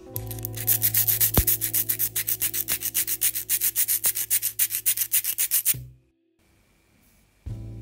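Diecast toy car body ground against a spinning sanding disc: a loud, pulsing rasp at about seven strokes a second that stops suddenly about six seconds in.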